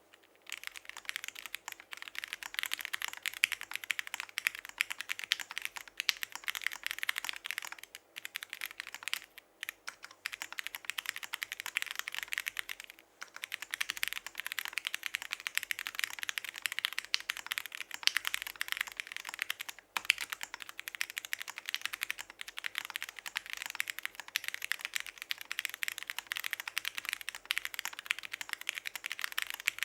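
Continuous fast typing on a TN Alice mechanical keyboard with Cherry MX Hyperglide Black Clear Top linear switches on an aluminium plate and PBT keycaps, pausing briefly a few times.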